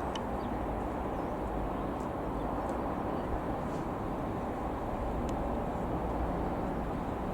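Steady outdoor background rumble with no distinct events, only a few faint ticks.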